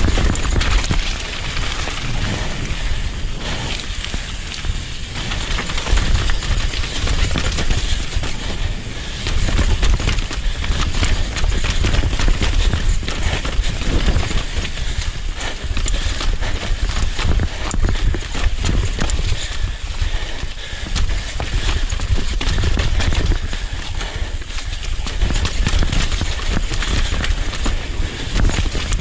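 Downhill mountain bike descending a rough, rocky trail at speed: wind buffeting the camera microphone as a heavy rumble, over a dense, continuous rattle and clatter of the bike and its tyres hitting rocks and roots.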